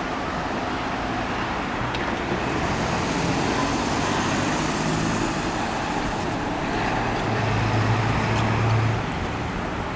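Road traffic passing close by: a steady rush of tyres and engines. A heavier vehicle's low engine hum comes up about seven seconds in and drops away near the end.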